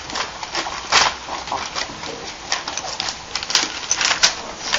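Newspaper crinkling and rustling under English Bulldog puppies' paws as they walk over it: a run of irregular crackles and taps, louder about a second in and again near the end.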